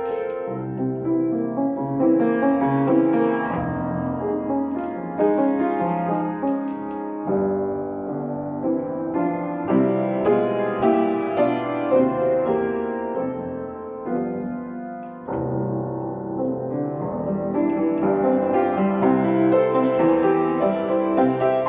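Piano being played: a continuous run of notes and chords that grows softer and thinner about two-thirds of the way through, then fills out again near the end.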